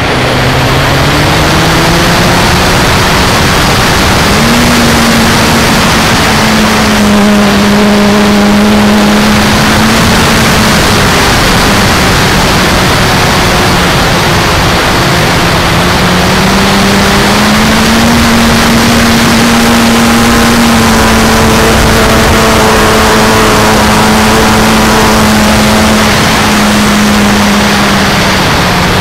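Onboard sound of a Sebart Pilatus PC-21 RC model airplane in aerobatic flight: the motor and propeller hum drops at the start, climbs a few seconds in, sags through the middle and rises again as the throttle changes. It sits under a constant loud rush of airflow over the camera.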